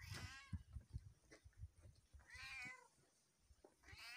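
A cat meowing faintly three times: a short call at the start, a longer meow that rises and falls about two seconds in, and another short one near the end.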